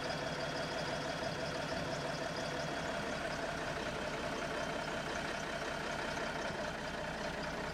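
Heavy boat-moving truck's engine idling steadily.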